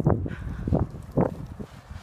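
Footsteps: a few heavy steps about every half second, growing softer in the second half.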